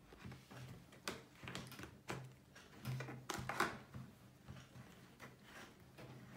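Hard plastic dollhouse parts knocking and clicking together as a wall panel is handled and fitted onto the frame: scattered short knocks, the loudest about three and a half seconds in, over a faint low hum.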